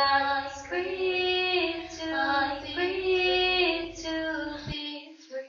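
A high female voice singing long, held, gliding notes. A low background hum underneath cuts off suddenly near the end, leaving the voice fading out.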